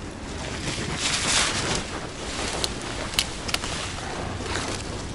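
Wind buffeting the microphone, with a rush of rustling about a second in and three sharp clicks a little past the middle.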